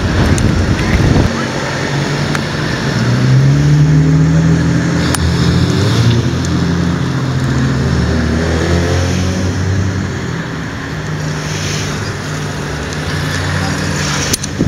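An engine running with a steady hum, its pitch wavering a little, after about a second of wind buffeting the microphone.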